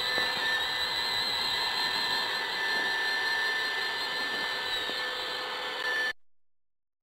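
Robot vacuum cleaner running: a steady whirring hum with a few high whining tones. It cuts off suddenly about six seconds in.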